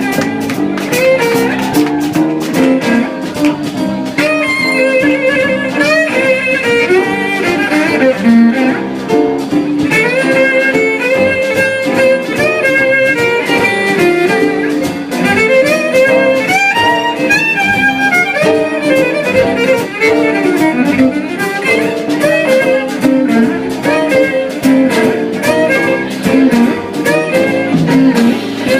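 Instrumental music: a fiddle plays a lead line of quick runs over guitar accompaniment.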